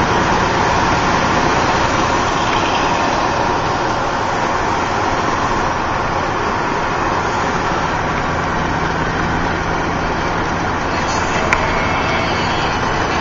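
Truck's diesel engine and tyre and road noise heard from inside the cab while driving on the freeway: a steady drone, with one short click near the end.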